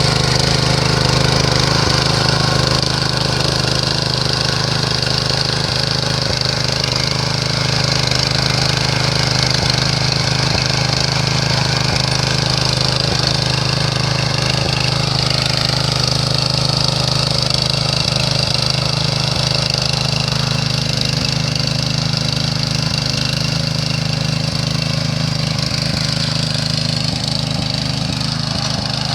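Small engine of a walk-behind cultivator (mini tiller plough) running steadily with a constant low hum.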